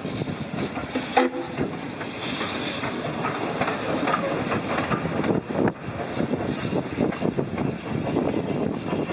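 Steam-hauled train led by South Australian Railways Rx class 4-6-0 steam locomotive RX 207, running with wheels clattering over the rails and a hiss of steam. There is a brief squeak about a second in.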